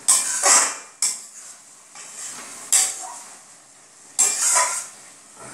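Flat metal spatula scraping and stirring through a thick curry in a metal wok: four or five sharp scrapes against the pan, a second or two apart.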